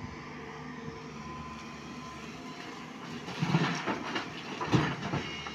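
JCB tracked excavator's diesel engine running steadily. A little past halfway, and again about a second later, come two loud bursts as rock and mud from its bucket tip into the steel bed of a Tata dump truck.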